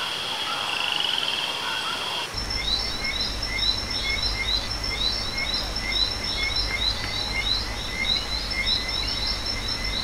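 Night-time tropical forest chorus of insects and frogs: steady high-pitched insect trilling, changing at a cut about two seconds in to a steady high drone with evenly repeated chirps, about two a second, over a low rumble.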